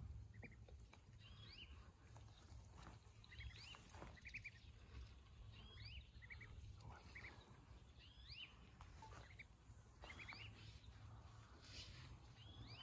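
Faint birds chirping: short high calls that rise and fall, repeating about every second and a half, over a low steady rumble.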